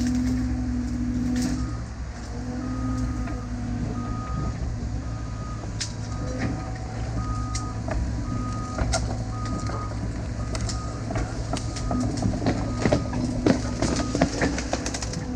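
Backup alarm of a diesel earthmoving machine beeping about twice a second over its steady engine, then stopping about eleven seconds in; sharp metal clanks come through, most often in the last few seconds.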